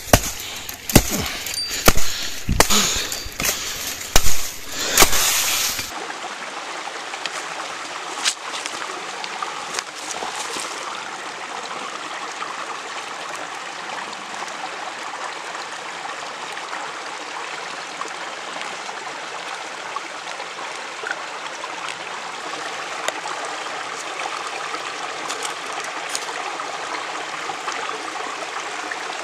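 For the first six seconds, footsteps crunch through dry leaf litter and snap twigs in loud, irregular cracks. After that comes the steady rush of running water, like a nearby stream, with a few faint clicks and scrapes.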